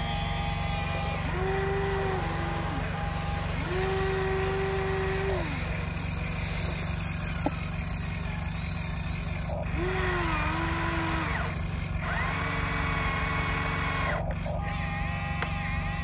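Electric motors of a Huina radio-controlled excavator whining in a series of short runs, each a second or two long, rising in pitch as it starts and dropping as it stops, as the boom, arm and bucket move to scoop mud. A steady low hum runs underneath, and there is one sharp click about midway.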